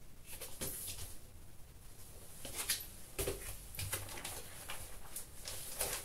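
Clear plastic record sleeve crinkling and rustling in a series of short bursts as an LP jacket is handled and slid into it, with a dull thump about three seconds in.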